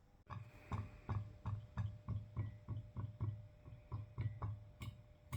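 A regular series of about fifteen soft thumps or knocks, roughly three a second, each a low thud with a light click, over a faint steady hum.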